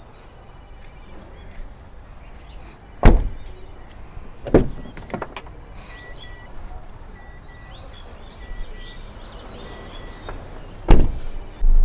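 Doors of a 2010 Ford double-cab pickup being shut: a loud slam about three seconds in, two smaller knocks a second or two later, and another loud slam near the end.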